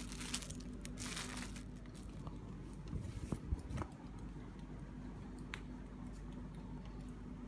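Clear plastic bag crinkling as a T-shirt is pulled out of it, followed by a few soft handling bumps and ticks about three to four seconds in.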